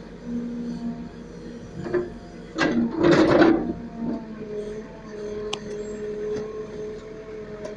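Case 770 backhoe loader's diesel engine running under hydraulic load, with a steady droning note that shifts pitch about four seconds in. About two and a half seconds in, the backhoe bucket digs into soil and stones with a loud scraping crunch lasting about a second, with a few lighter knocks of stone around it.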